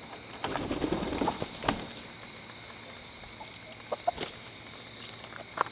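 Chickens clucking, mostly in the first two seconds, with a few sharp knocks spread through: the loudest about a second and a half in, then two more around four seconds and one near the end.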